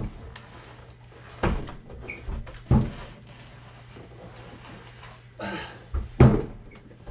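Several knocks and bumps as a heavy dirt bike is pushed in through a front doorway past the open door. The loudest knock comes about six seconds in.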